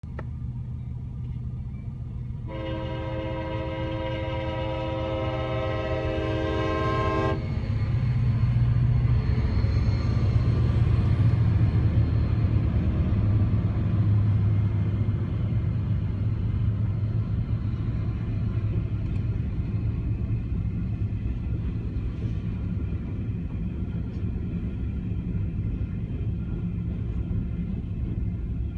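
A diesel locomotive's air horn sounds one long chord of several notes starting about two and a half seconds in, lasting about five seconds. Then the CSX lead pair, an EMD SD40-2 and a GE C40-8W, rumble past, loudest around ten seconds in, followed by the steady rolling of covered hopper cars.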